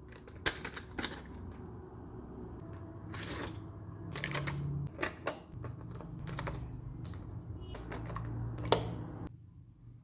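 Irregular plastic clicks, taps and rustling from hands handling a toy set's packaging and pieces, stopping abruptly near the end.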